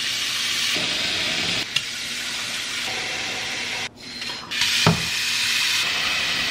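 Water pouring from a swing-arm pot-filler faucet into stainless steel stockpots. Partway through, the stream briefly stops as the spout is swung to another pot, and a metal clunk follows as it starts pouring again.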